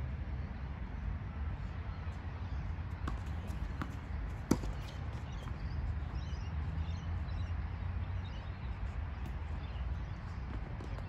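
Steady low rumble with scattered light clicks, one sharp knock about four and a half seconds in, and faint bird chirps.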